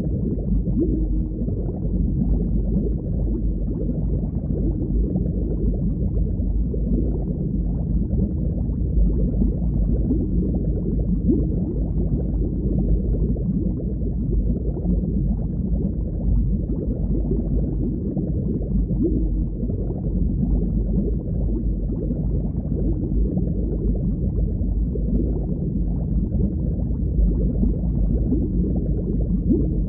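Underwater ambience: a steady, low, muffled noise of water with no breaks or changes.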